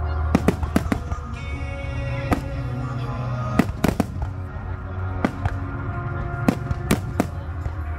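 Fireworks show: about a dozen sharp bangs of shells bursting at irregular intervals, some in quick clusters, with music playing steadily underneath.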